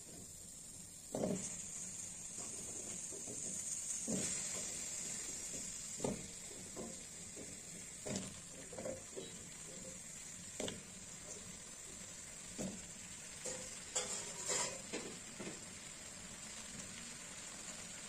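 Chunks of raw pumpkin dropped one at a time into a stainless-steel pan, a short knock every two seconds or so with a few quicker hits later, over a steady high hiss.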